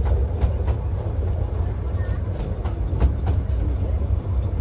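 Miniature railway carriage rolling along the track: a steady low rumble with repeated clicks and knocks from the running gear.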